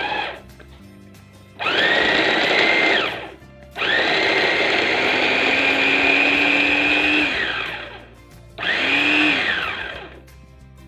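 Motor of an Oxone OX-272 electric jumbo chopper run in three pulses while chopping potatoes: a short burst, a longer run of about four seconds, then another short burst. Each pulse winds up to a high whine and winds down when the button is released.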